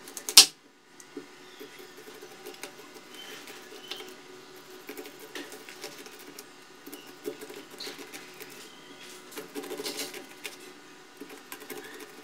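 Kitchen knife cutting the kernels off an ear of sweet corn on a wooden chopping board: a sharp knock about half a second in, then a steady run of small crisp crackles and taps as the blade shears through the kernels, busiest around ten seconds in.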